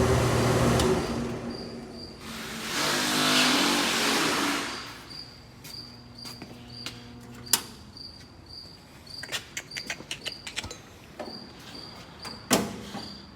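Cab heater/AC unit's blower fan running, cutting out about a second in, running again for a couple of seconds, then stopping. Sharp clicks follow, a quick run of them near the end, while a cricket chirps in short, evenly spaced bursts.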